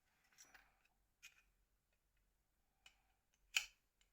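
Small sharp clicks and taps of a mobile phone's small parts being handled and worked free during disassembly: a few faint ticks, then a louder click about three and a half seconds in.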